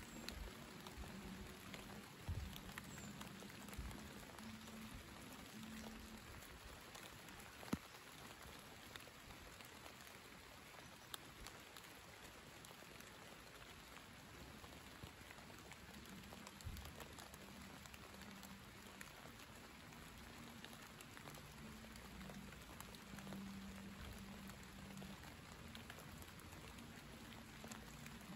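Faint, steady light rain falling, with scattered drop ticks and one sharper tick about eight seconds in.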